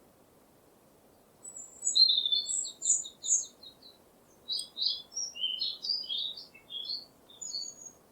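A songbird singing: a quick run of repeated high notes, then a looser phrase of varied chirps and warbles.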